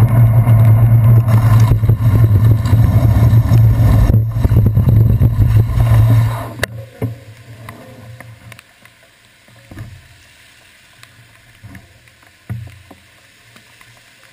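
Loud muffled rumble of wind and wet-road noise picked up by a handlebar-mounted GoPro in its waterproof housing while the bicycle rolls along. It cuts off sharply about halfway through as the bike stops, leaving faint traffic noise with a few soft thumps.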